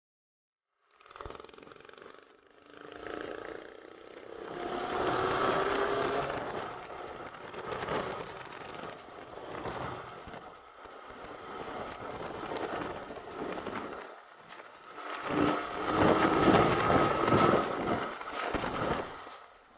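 Motorcycle riding at speed, heard as wind rushing and buffeting over the camera microphone with the engine's note under it, rising in pitch about four seconds in and louder again near the end.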